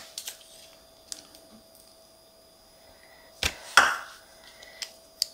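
Clicks and knocks from a handheld metal garlic press being squeezed and reopened over a bowl of butter, with two sharper knocks about three and a half seconds in and a few light clicks near the end.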